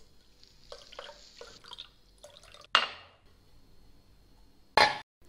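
Kitchen handling sounds of a plastic water bottle and dishes on a counter: a few light knocks and clinks, a sharp clink about halfway through, and a short, louder clatter near the end that cuts off abruptly.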